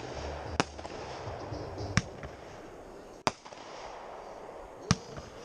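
Aerial fireworks bursting: four sharp bangs, roughly a second and a half apart, over a steady background hiss.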